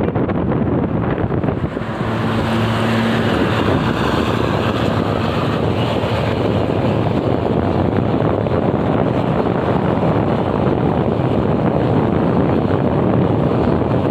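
Wind rushing over the microphone with road and engine noise from travelling at speed behind a coach. A short steady low tone sounds about two seconds in.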